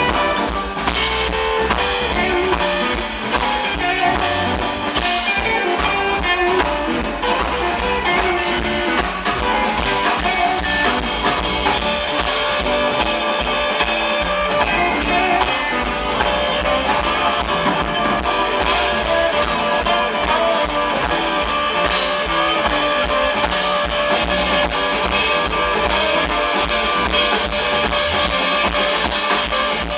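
Live blues band playing: electric guitar lead over drum kit.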